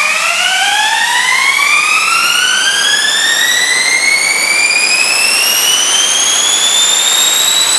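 Homemade turbojet engine spooling up: a high whine with overtones climbs steadily in pitch over a rushing of air, the climb easing off near the end.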